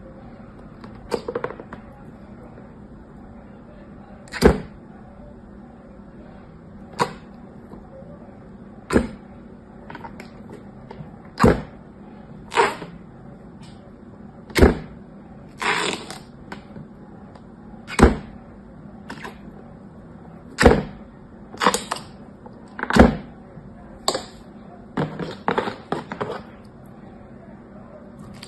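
Clear slime being pressed with a small plastic stamp, giving short sharp sticky pops about every one to two seconds, some in quick pairs, over a faint steady hum.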